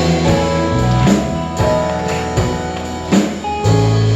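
Praise band playing an instrumental passage between sung lines: guitar and drum kit over low sustained notes, with drum hits keeping a steady beat.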